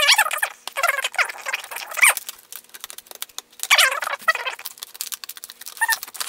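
Scissors cutting through a stiff plastic clamshell blister pack: quick clicks of the blades and plastic, with several short squeaks and creaks from the rigid plastic as it is cut and bent.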